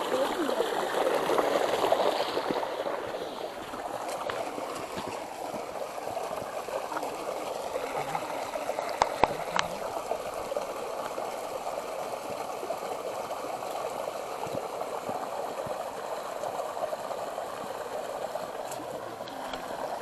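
Creek water running and splashing over rocks, a steady rushing that is loudest in the first few seconds. A couple of sharp clicks sound about nine seconds in.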